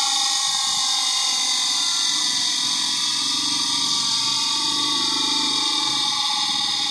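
Electric grinding wheel running with a steady high whine, its pitch sinking slightly over several seconds.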